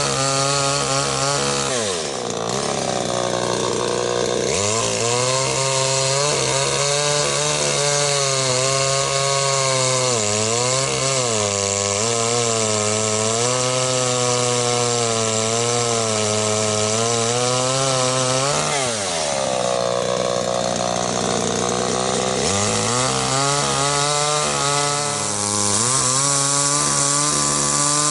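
Tanaka 32cc two-stroke chainsaw running hard, its pitch wavering as if under load while cutting a log. Twice, at about 2 and 19 seconds in, the revs drop and then climb back up.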